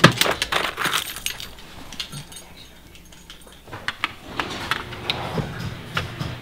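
Keys and small metal objects clinking and jangling as a hand rummages through a drawer. A quick run of sharp clicks in the first second and a half, then quieter handling, then more clinks and clicks in the second half.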